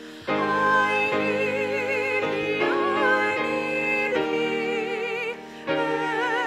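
A church congregation and choir singing a hymn together, accompanied by piano. Held notes sung with vibrato, with a short break between lines about five seconds in.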